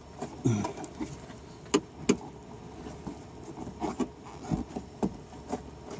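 Handling noises of hand work on the car body: scattered light clicks and knocks, two sharp clicks close together about two seconds in, as a silicone-lubricated rubber plug is worked into place.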